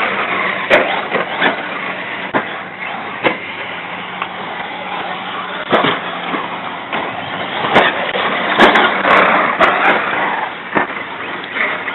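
Remote-control cars running on a dirt track: a steady rush of tyres and motors, broken by many sharp clicks and knocks.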